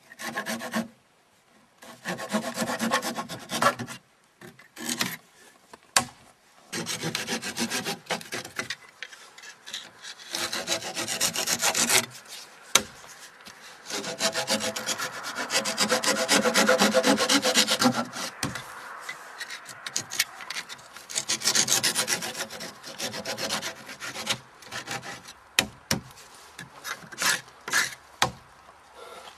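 A tool rasping and scraping on the wood of a peeled log end as it is shaped, in rough bursts of one to four seconds with short pauses between.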